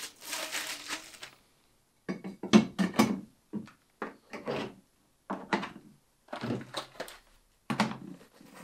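Plastic vacuum attachments being handled and slotted into the accessory tray on the back of a Kränzle Ventos wet-and-dry vacuum. A rustle comes first, then a string of short plastic clunks and knocks as the tools go in.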